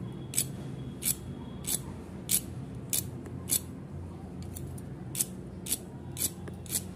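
A white plastic fork scraped again and again across a crisp deep-fried shredded-potato snack, making short, dry crackles about every half second. The crackling is the sign that the potato strands are fried properly crunchy and crisp.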